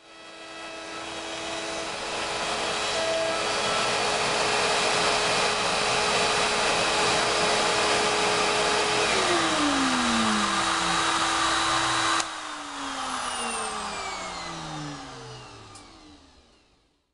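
CNC router spindle and dust-extraction vacuum running together: a steady whine over a rush of air. About nine seconds in, one whine falls away as a motor spins down. About three seconds later the level drops suddenly, and the remaining motor winds down with falling tones until it dies out.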